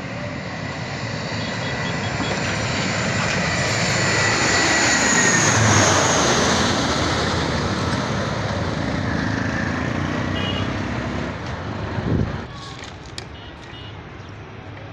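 Four-engine turboprop transport plane flying low overhead on landing approach: its engine and propeller noise swells to a peak about six seconds in, then its whine falls in pitch as it passes and moves away. About twelve seconds in the sound cuts off with a brief thump, leaving a quieter steady background.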